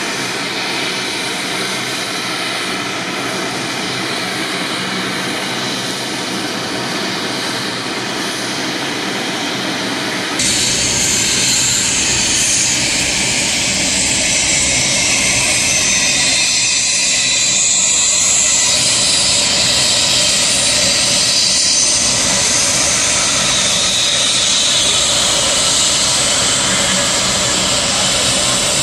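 Medevac helicopter's turbine engines and rotor running with a loud, steady rush. About ten seconds in, the sound changes abruptly and grows louder, with more low rumble.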